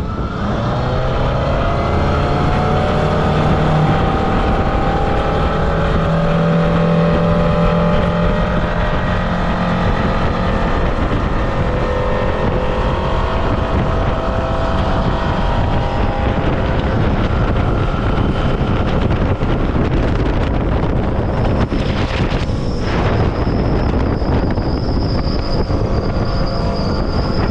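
Suzuki 200 hp four-cylinder outboard on a Boston Whaler running under way, its note rising over the first couple of seconds as the boat speeds up and then holding steady, with wind on the microphone. A high thin steady tone joins about three-quarters of the way through.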